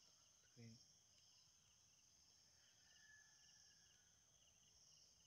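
Near silence, with a faint steady chorus of insects trilling. A short voice sound comes about half a second in.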